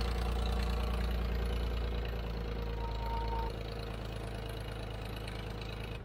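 Engine of an old Ford 4500 backhoe running steadily under hydraulic load as the digging arm is worked; the level drops slightly about three and a half seconds in.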